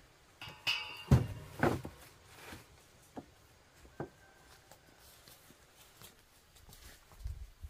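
A few sharp knocks and heavy thumps, the loudest about a second in, followed by scattered lighter taps and a low thud near the end.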